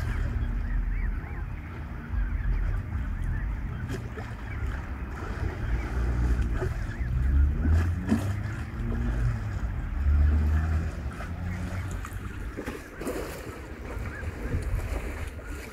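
Wind buffeting the microphone in uneven gusts, with Canada geese and their goslings calling now and then.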